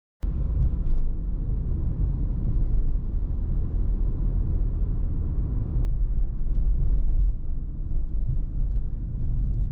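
Strong typhoon wind buffeting the microphone in a loud, steady low rumble.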